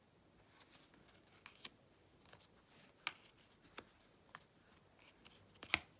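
Tarot cards being handled in a flip-through: faint, scattered taps and clicks of card stock, the sharpest about three seconds in and just before the end.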